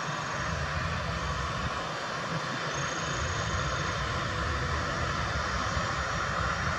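Jet airliner's engines running as it rolls along the runway: a steady rushing noise over a low rumble, growing a little louder, with a faint high whine for about a second in the middle.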